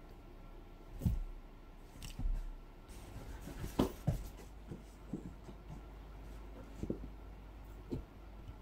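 Scattered soft thumps and knocks from a poodle moving about and playing with a ball on the sofa and wooden floor, the loudest about four seconds in.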